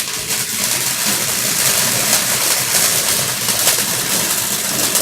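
A lit ground firework spraying sparks: a loud, steady hiss with scattered crackling pops.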